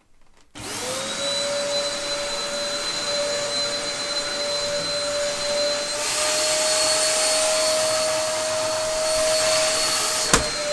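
Dyson upright vacuum cleaner switched on about half a second in, its motor whine rising quickly to a steady pitch over a rush of airflow. About six seconds in it grows louder and hissier, and a single sharp click comes near the end while it keeps running.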